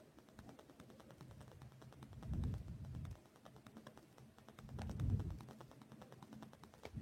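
Faint handling sounds of needle lace work: a needle and thread being worked through fabric by hand, giving many fine ticks and clicks, with two soft low rustles about two and five seconds in.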